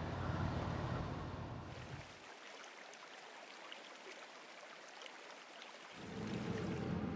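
Faint outdoor location ambience: a low rumble with a light hiss, which drops to a soft, even hiss about two seconds in, with the low rumble returning near the end.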